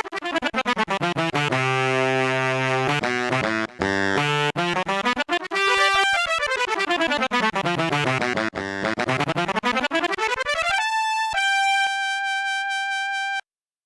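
Sampled brass instrument from an SF2 soundfont, played from a keyboard in fast note runs that sweep down and up in pitch with some held chords, ending on a long high note that cuts off suddenly shortly before the end.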